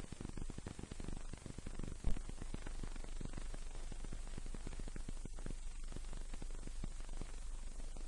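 Hiss and crackle of an old film soundtrack between narration, with a steady low hum underneath, fine crackling clicks throughout and one sharper click about two seconds in.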